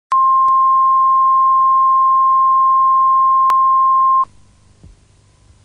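Broadcast line-up tone accompanying colour bars: a single steady 1 kHz pitch held for about four seconds, then cutting off abruptly, leaving faint hiss and hum.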